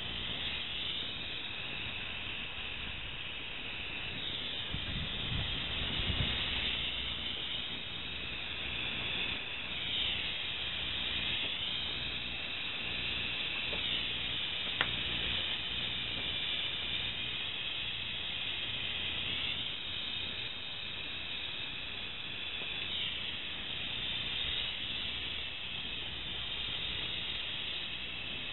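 MAP gas torch flame burning with a steady hiss that shifts in tone every few seconds. A low bump comes about six seconds in and a single sharp tick near the middle.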